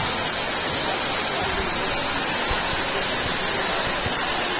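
A steady, even hiss with no rhythm or tone, holding at one level throughout.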